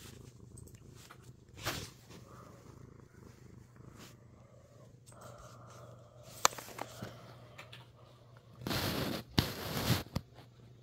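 Tabby cat purring steadily close to the microphone. The purr is broken by a sharp click about two thirds of the way in and by loud rustling near the end, lasting about a second and a half, as the phone moves against fur and bedding.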